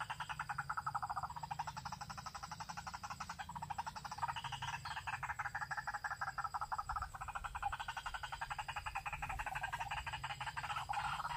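White-breasted waterhen (ruak-ruak) call, used as a lure: a fast, continuous pulsed croaking that swells and sweeps in pitch in waves every few seconds.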